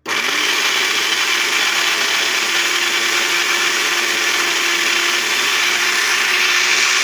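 Electric countertop blender switched on and running, blending chopped peaches with water and orange drink mix. The motor's pitch rises as it spins up just after starting, then holds a steady loud whir.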